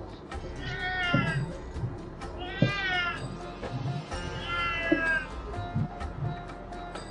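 A cat meowing three times, each call about half a second long and rising then falling in pitch, over background music. A few light knocks come between the calls.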